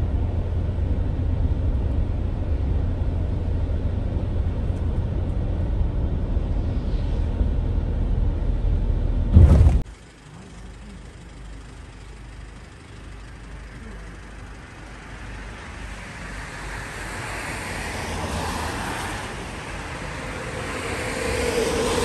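Steady low road rumble of tyres and engine heard from inside a moving vehicle, cutting off suddenly about ten seconds in. After that comes quieter roadside traffic noise, with a vehicle passing that swells and fades in the second half.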